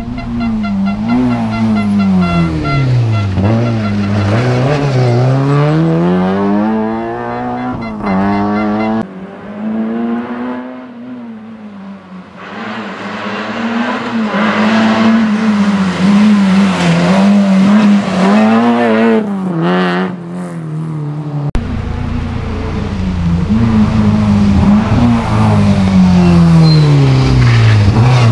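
Peugeot hatchback rally car's engine revving hard as the car drives through corners. The pitch climbs with each burst of throttle and drops sharply at each lift or gear change, in several separate runs cut one after another.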